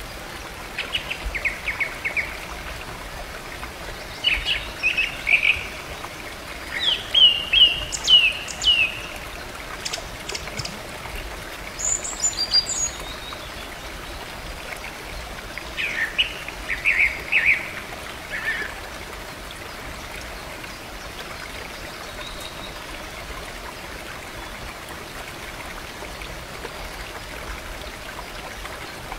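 Small woodland waterfall running steadily into a pool, with birds chirping in short runs of quick notes over the first two-thirds; after that only the water is heard.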